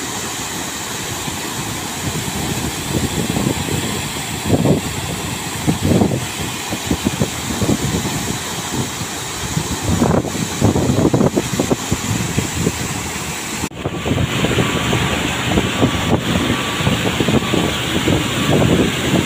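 Large drainage pumps discharging: heavy jets of water gushing from several big outlet pipes and splashing into a river, over a steady machine hum, with irregular low buffeting. About two-thirds through the sound changes to a closer, hissier rush of water right at one outlet.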